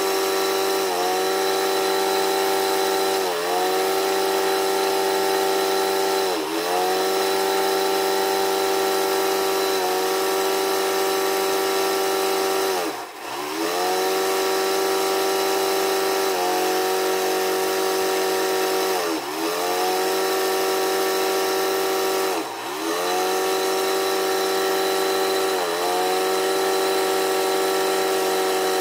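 A steady machine drone with a motor-like pitch. Now and then, every three to six seconds or so, the pitch sags briefly and then climbs back.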